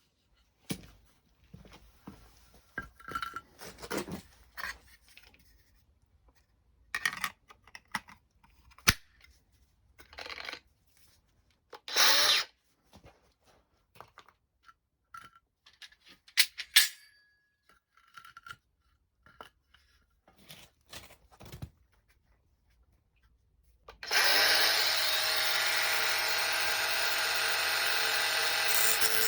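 Small hardware clicking and clattering as it is handled, in scattered knocks. About 24 seconds in, a power tool's motor starts and runs steadily.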